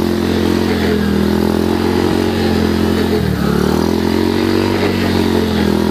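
Modified motocross bike's engine running hard as it pushes through deep mud, its note dipping sharply about three seconds in and climbing back.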